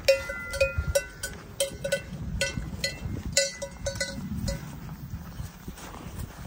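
Cowbell on a grazing cow clanking irregularly, two to three ringing strikes a second, dying away after about four and a half seconds.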